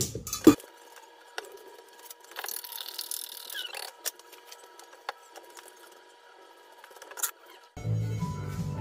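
Faint scattered clicks and knocks of cookware and utensils being handled, over a thin steady hum. Background music comes in near the end.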